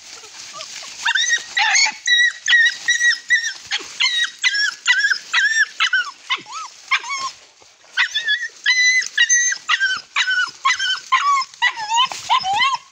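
Hunting dogs yelping and whining in quick high-pitched cries, two or three a second, as they fight a honey badger, with a short lull about seven seconds in.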